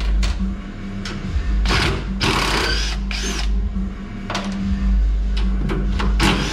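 Cordless drill running in several short bursts on fasteners in the boat's engine bay, the longest bursts about two to three seconds in, over a steady low hum.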